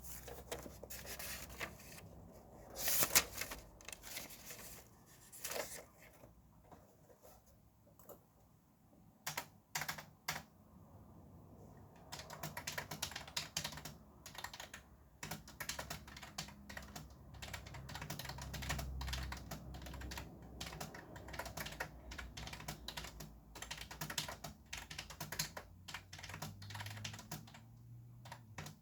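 Typing on a computer keyboard: scattered keystrokes with pauses and one louder clatter about three seconds in, then fast, steady typing from about twelve seconds on.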